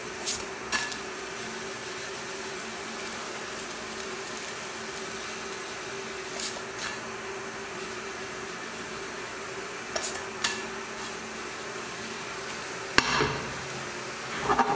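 Frying pan being jerked and tossed to flip a thin blin. Several pairs of short knocks and slaps sound as the pan moves and the pancake lands back in it, with a sharper knock near the end, over a faint steady hum.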